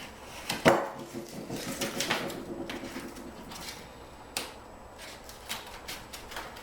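Handling noises: scattered taps, knocks and rustles, the loudest a sharp knock less than a second in, as peel-and-stick foam edge strips are worked and pressed in place.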